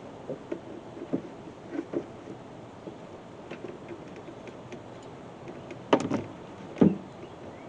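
Scattered light taps and clicks from handling the air filter and its plastic air box under the hood, with two sharper knocks about six and seven seconds in.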